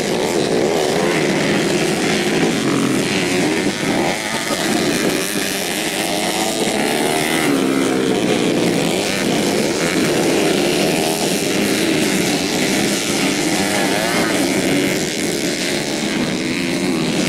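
Several modified 125cc four-stroke underbone motorcycle engines revving hard together in a motocross race, their pitches rising and falling and overlapping.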